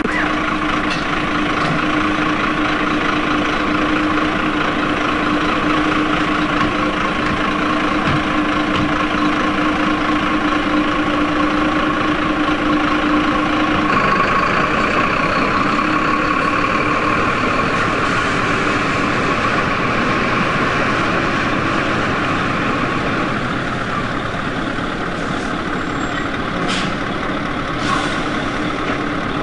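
Heavy diesel truck engine running steadily, a continuous drone with a low steady hum that stops about halfway through. Two short clicks come near the end.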